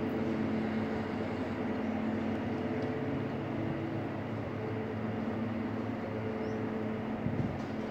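Steady drone of an idling diesel engine, most likely the narrow-gauge toy train's locomotive, with a low hum and a constant tone over it.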